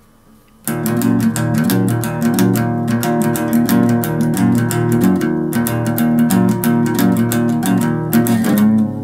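Acoustic guitar strumming chords in quick, even strokes, starting abruptly about a second in after a brief quiet stretch: the instrumental intro of an indie rock song.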